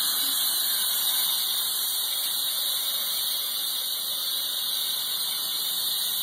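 Self-serve car wash high-pressure wand spraying water onto a car's interior door panel and seat: a steady high hiss.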